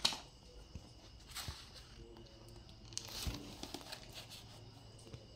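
Pen writing on notebook paper: faint, scattered scratching strokes and light paper rustle, with a sharp click at the very start.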